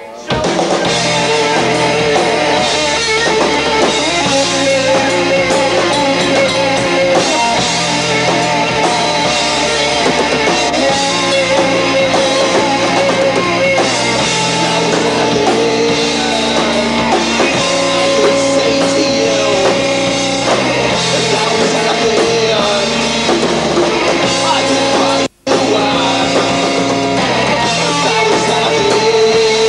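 A live three-piece rock band, with electric guitar, bass guitar and drum kit, playing a loud song. The sound cuts out for an instant about 25 seconds in.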